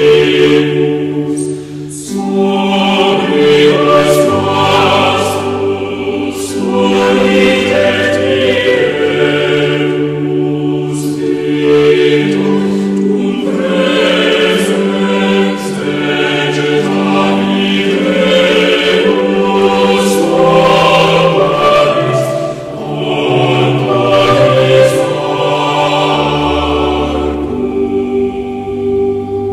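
Choral music: a choir singing slow, held chords that change every second or two.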